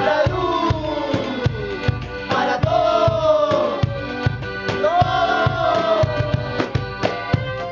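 A live street band plays: regular drum strikes under a melody of long notes that slide downward, with singing voices.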